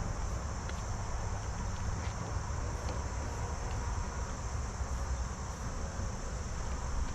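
Honeybees buzzing steadily in the air around an opened hive, stirred up after being shaken and brushed off a honey frame, with a steady high insect trill alongside.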